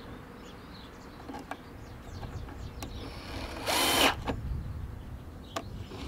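Power drill driving a screw into a plastic bird-feeder perch: one short burst about four seconds in, its motor whine rising quickly, after a few light clicks.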